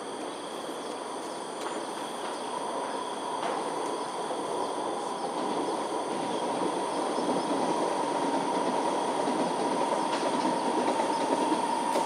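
Distant vehicle noise: a steady rumble with a whine, slowly growing louder.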